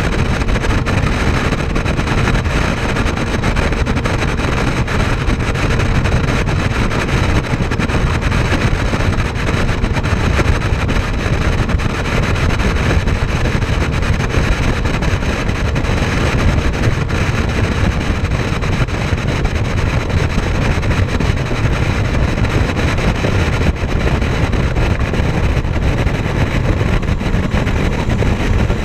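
Motorboat running across open water, a steady rumble mixed with wind buffeting the microphone.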